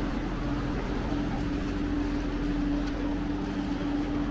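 A motorboat engine running steadily, a low hum at an unchanging pitch.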